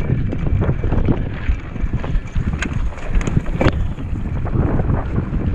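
Wind buffeting the microphone of a camera on a mountain bike ridden over rough gravel and dry grass. Under it are constant rattles and knocks from the bike on the bumpy ground, with a few sharper clicks in the middle.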